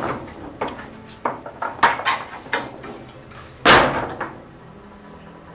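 A string of sharp knocks and bangs, like a door or sheet-metal gate being slammed and rattled. The loudest bang comes about three and a half seconds in and rings on briefly.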